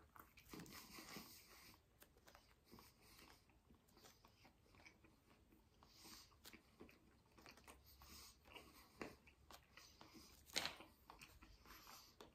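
A person biting into a chicken sandwich on a soft brioche bun and chewing the mouthful: faint chewing with small mouth clicks, and one brief louder sound about ten and a half seconds in.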